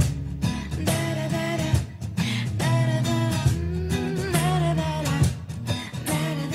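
Background music: a song with guitar and a singing voice over steady bass.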